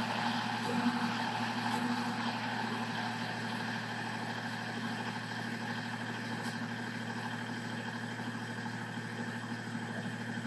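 Kubota L3901 compact tractor's three-cylinder diesel engine idling steadily.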